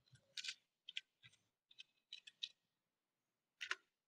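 Faint computer keyboard clicks: a short, uneven run of keystrokes typing a terminal command, then one sharper keystroke near the end, the Enter key that runs it.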